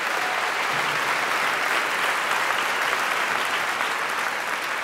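Audience applauding, a steady dense clapping that eases off slightly near the end.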